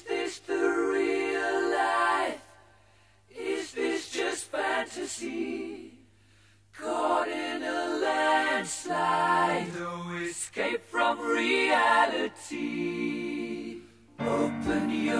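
Background music: a cappella singing, voices without instruments, in phrases broken by short pauses.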